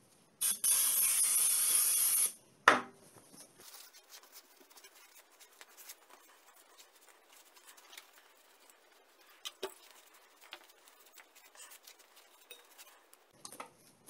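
An aerosol spray can hissing in one burst of about two seconds onto a rusty refrigerator compressor, followed by one sharp knock. After that comes faint rubbing of a cloth wiping the compressor's metal housing.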